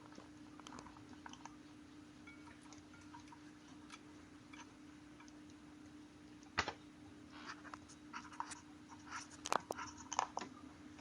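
Light clicks and scrapes of tools and brake parts being handled during rear brake pad work. There is a sharp metallic knock about six and a half seconds in and a cluster of clinks and knocks near the end, over a faint steady hum.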